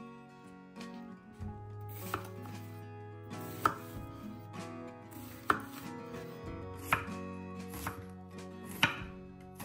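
Santoku knife cutting a red onion on a wooden cutting board: a sharp knock of the blade on the board every second or two as the onion is sliced and diced.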